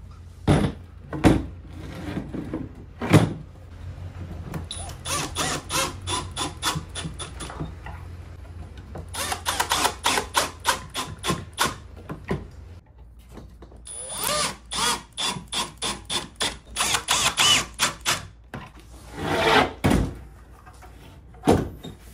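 Cordless drill driving pocket-hole screws through the top panel into the oak frame, in three runs of a few seconds each, with fast clicking throughout each run. A few knocks of the panel being set into the frame come at the start and near the end.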